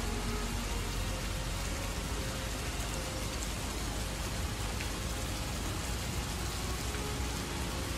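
Steady rain, an even hiss, with faint held string notes underneath.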